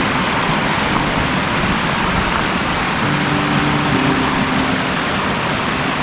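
Water cascading down a mountain waterfall: a steady, loud rushing noise with no breaks.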